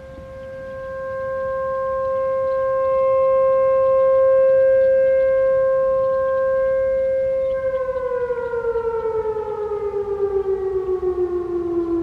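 Federal Signal Thunderbolt 1000T rotating-horn outdoor warning siren sounding a steady tone that swells louder as the horn turns toward the listener. Past halfway it winds down, its pitch falling steadily while the sound wavers.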